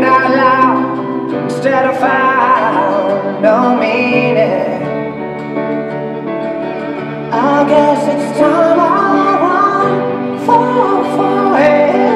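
Slow ballad with a female singer's voice holding long, wavering notes over sustained accompaniment.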